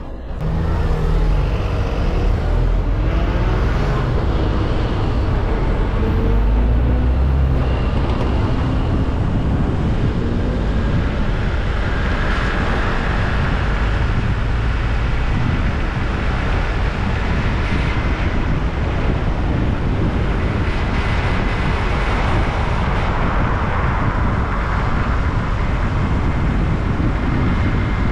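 Car driving in city traffic: a steady rumble of engine and tyre noise, with the sound of passing traffic.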